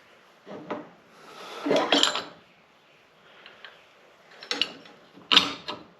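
Small steel parts of a motorcycle's front axle clinking and scraping in short spurts: wheel spacers and washers being handled as they come off. There are a few separate clatters, the longest about two seconds in.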